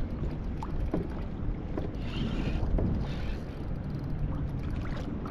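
Steady low rumble of wind and water around a kayak, with a few faint clicks and a short hiss about two seconds in.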